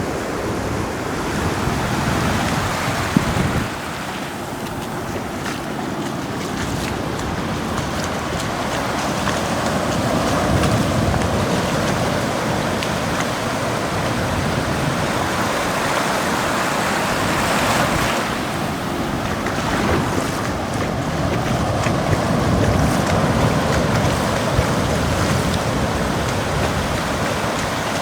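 Ocean surf breaking and washing up the beach in swells, with wind buffeting the microphone.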